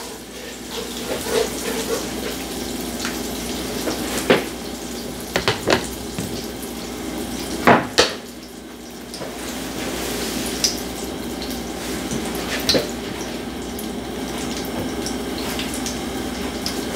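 Butter and avocado oil foaming and sizzling steadily in a skillet, with a spatula knocking and scraping against the pan a few times; the loudest knock comes about eight seconds in.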